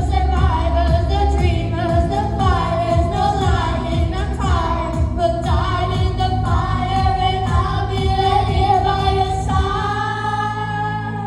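K-pop song with layered female vocals singing long, sliding wordless notes over a pop beat. Near the end the beat drops away, leaving a held chord.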